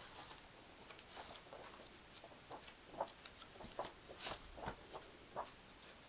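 Paper pages of a hardback book flicked through by hand: faint, irregular patter of pages fanning over and ticking against each other.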